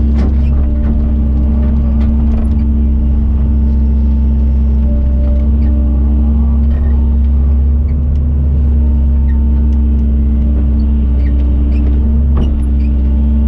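A JCB JS130 tracked excavator's diesel engine runs steadily under work, heard inside the cab as a constant low drone, while the operator works the joysticks. A few knocks from the machine come through, one right at the start and one near the end.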